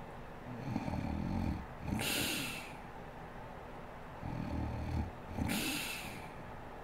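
A sleeping woman snoring: twice, a low snore of about a second is followed by a short, breathy hiss of air.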